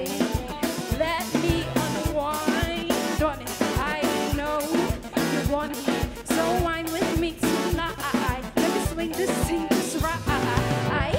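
Live band (keyboard, drum kit and electric guitar) playing a steady groove while a woman sings melodic runs and ad-libs without clear words over it.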